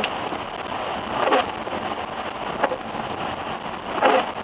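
Rain on a moving car, with windshield wipers swishing across the glass about every second and a half over the steady wet road noise.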